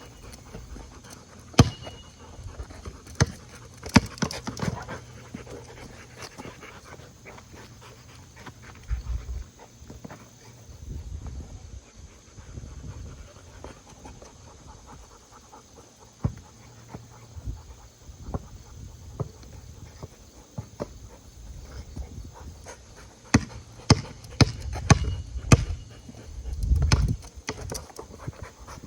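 A dog panting, with scattered sharp knocks and clicks and some low thumps, loudest in a cluster near the end.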